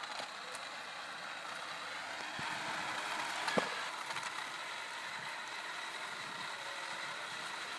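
Small battery-powered electric gear motors driving the wheels of a homemade ride-on costume, a steady mechanical whirring together with the wheels rolling on a concrete sidewalk. One sharp click comes about three and a half seconds in.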